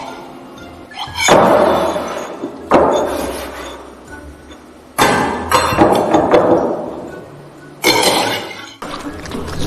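Foley breaking sounds: four heavy smashing crashes, each trailing a shattering noise that fades over a second or two, with a few smaller knocks in between.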